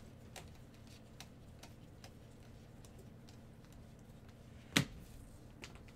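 Baseball cards being flipped through one by one in gloved hands, giving faint scattered clicks as the card edges snap past each other, with one louder click nearly five seconds in.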